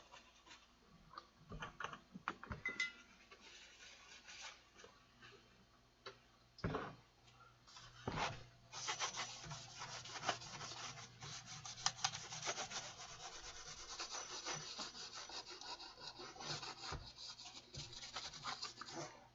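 Scrubbing the dirty front panel of a Behringer EP2500 power amplifier: a few scattered handling knocks and rubs, then rapid back-and-forth scrubbing strokes from about eight seconds in.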